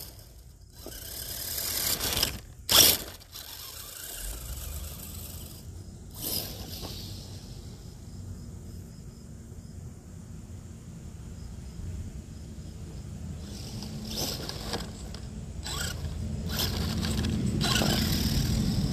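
Radio-controlled model mud truck driving across grass, its motor drone and tyres on the grass growing louder near the end as it comes right up to the microphone. Two sharp knocks sound in the first three seconds.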